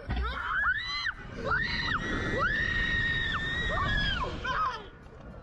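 Young women screaming as a slingshot ride launches them into the air: a few short high screams, then one long scream held for about two seconds, over a low rumble of rushing air.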